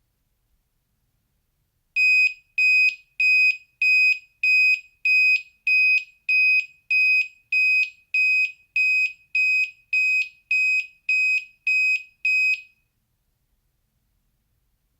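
Active piezo buzzer of a homemade Arduino alarm clock sounding its alarm: a high-pitched beep repeated about seventeen times, roughly one and a half beeps a second, for about ten seconds before it stops.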